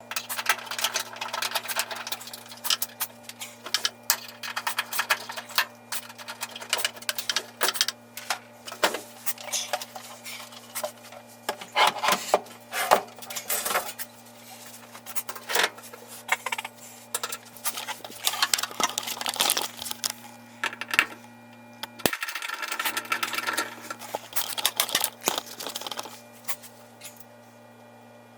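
Irregular metallic clicking and clattering of tools and parts being handled during washing machine disassembly, over a steady low electrical hum. A sharp click about two-thirds of the way through is followed by the hum cutting out for under a second.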